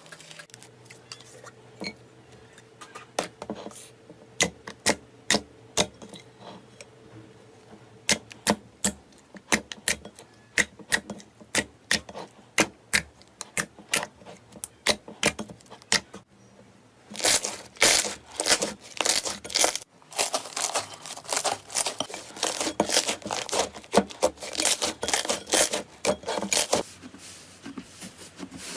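Slime being squished and worked, giving sharp clicking pops about twice a second. Past the middle this turns into a dense run of crackling pops lasting about ten seconds.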